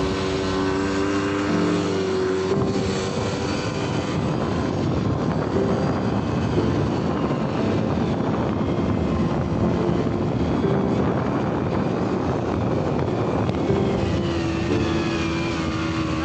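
Quad bike (ATV) engine running with a steady drone that shifts pitch now and then as it rides, under constant wind rush on the microphone.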